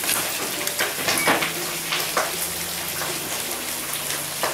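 Meat fat sizzling and crackling over a charcoal grill: a steady hiss with a few sharp pops.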